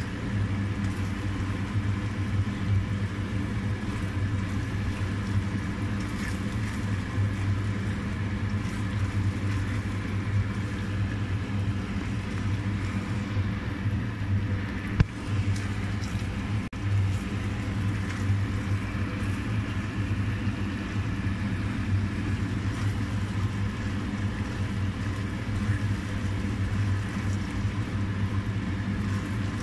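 A steady low machine hum with an even pitched drone, with one short knock about halfway through.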